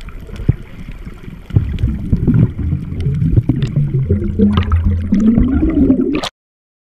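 Muffled water sloshing and bubbling, heard underwater, as snorkelers swim with fins and breathe out bubbles. It grows louder about a second and a half in and cuts off abruptly shortly before the end.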